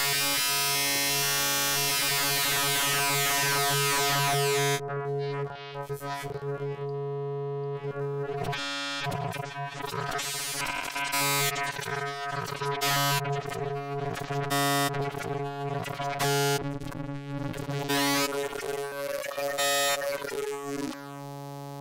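Expert Sleepers Disting mk4 in wavetable waveshaper mode playing a single held synthesizer note at one steady pitch, its tone shifting constantly as the input waveform is changed. It is bright and buzzy for about the first five seconds, then softer, with bright flares of upper harmonics coming roughly every second.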